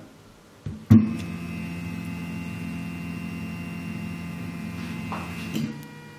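Stepper motors of a Kossel delta 3D printer starting up about a second in and then running a test print under Marlin firmware, a steady hum of several held tones with a shift in pitch near the end. The arms are unhooked, so the sound comes from the carriages and motors alone.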